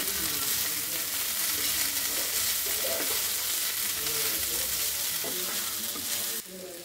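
Chopped okra, grated coconut and spices sizzling steadily as they fry in a black kadai, with a steel spoon stirring and turning them in the pan. The sizzle drops sharply in level near the end.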